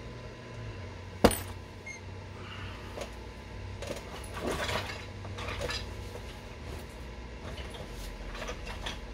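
Hard clicks of stone and knapping tools being handled: one sharp click about a second in, then a cluster of lighter clinks and scrapes around the middle.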